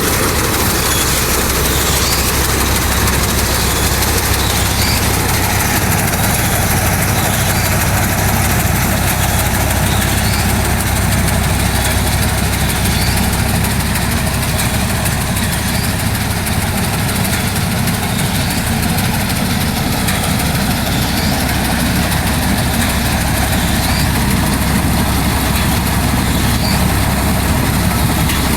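Tractor engine running steadily with a Vikas 325 tractor-mounted mini combine harvester: a loud, continuous mechanical drone that stays even throughout.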